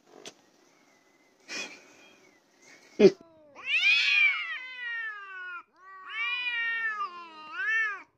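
A sharp knock about three seconds in, then cats caterwauling in a face-off: two long, wavering yowls that rise and fall in pitch, the threat call of cats squaring up to fight.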